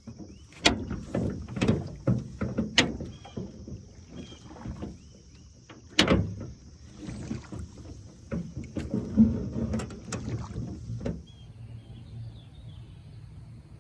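Oars rowing a small boat: several sharp clunks from the oars in their oarlocks and the blades splashing through the water, with faint bird chirps and a steady insect trill. About eleven seconds in this gives way to quiet lakeside ambience.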